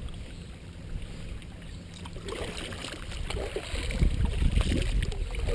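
Water and wind noise aboard a sailing canoe: a low, uneven wind rumble on the microphone over light water hiss, growing stronger in the second half.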